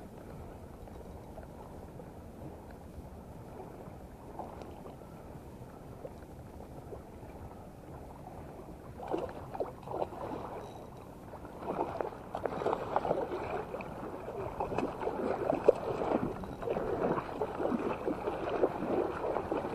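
Quiet lapping water at first, then from about nine seconds in a small hooked fish splashing at the surface as it is reeled in close. The splashes come irregularly and grow louder and more frequent toward the end.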